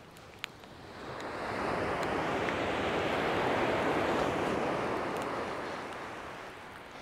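A wave breaking and washing up a shingle beach: a rushing hiss that swells over about a second, holds for a few seconds and slowly fades away. A single sharp click comes just before it.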